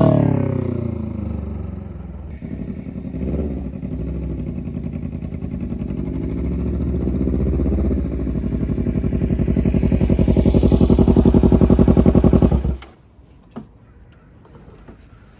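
Kawasaki Ninja 300's parallel-twin engine through a GP exhaust that is practically a straight pipe: revs falling off, then running with a low, pulsing exhaust note that grows louder. The sound cuts off suddenly near the end, leaving a few faint clicks.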